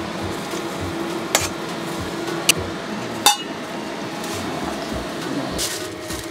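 Metal spatula clinking and scraping against a bowl and a stainless steel pot as stir-fried soybean sprouts are pushed in: three sharp clinks about a second apart, the loudest about three seconds in, over a steady low hum.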